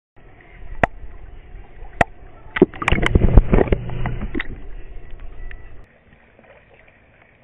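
Handling noise on a camera microphone: scattered sharp knocks, thickest about three seconds in, over a low rumble that drops away about six seconds in.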